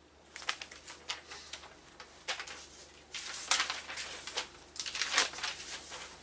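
Paper rustling and crinkling as it is handled, in uneven bursts with a few sharp clicks.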